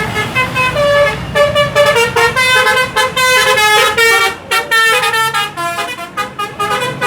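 Basuri telolet horn on a bus playing a quick tune of short notes that change pitch in rapid succession, several tones sounding together, with the low rumble of the engine underneath.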